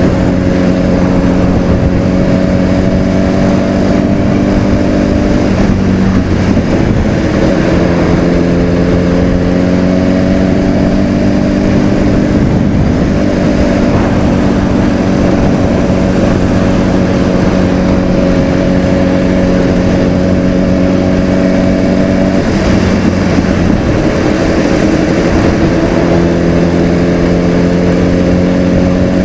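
Sport motorcycle engine heard from the bike while riding at a steady town speed. Its note holds steady, drops briefly about six seconds in and again about twenty-two seconds in, then slowly climbs each time.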